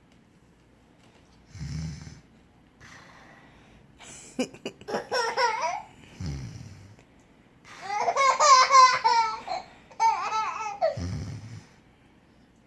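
A toddler's playful pretend snoring: three short, low snores about four to five seconds apart. Between them comes a young child's high-pitched giggling and squealing laughter, loudest around the middle.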